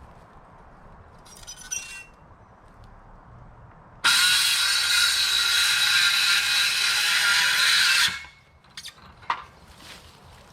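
A power saw cutting through wood, a steady loud run starting abruptly about four seconds in and stopping about four seconds later, with a few light knocks and clicks before and after.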